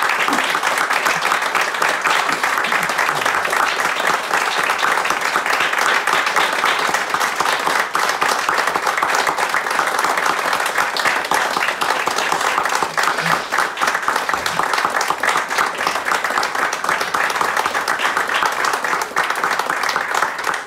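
A small audience applauding steadily, many hands clapping together, with the clapping thinning out near the end.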